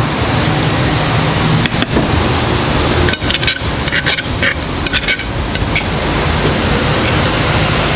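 Spoon and fork scraping and clinking against a cast iron sizzling plate while scooping sisig, with a cluster of sharp clinks about two to five seconds in. Under it runs a steady low hum.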